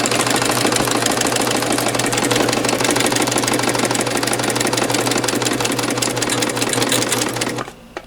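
Husqvarna Viking Amber Air S 600 serger running steadily at speed, running off the thread already in it before rethreading. It stops suddenly just before the end.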